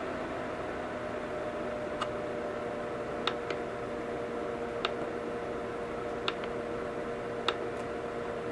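Bionaire BCM7255 cool mist humidifier running, giving a steady airy hiss with a faint hum. About seven light clicks come at uneven intervals over it.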